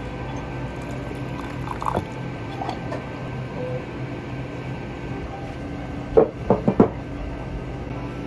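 Hot water pouring from a white pot into a ceramic yunomi teacup for powdered green tea. Between about six and seven seconds in come three or four sharp, loud clinks against the ceramic.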